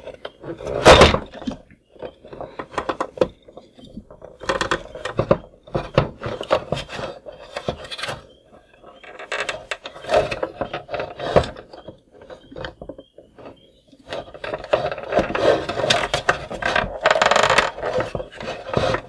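Pliers working at a toy wheel on its plastic axle to pry it off: irregular scraping, creaking and clicking of plastic, with a loud snap about a second in and a longer spell of scraping near the end.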